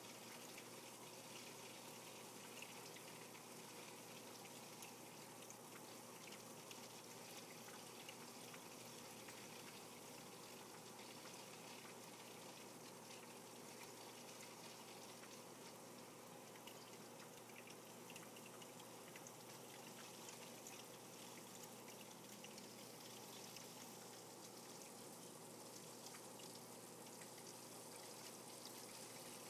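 Faint, steady trickling of water in a fish tank, with a low steady hum underneath.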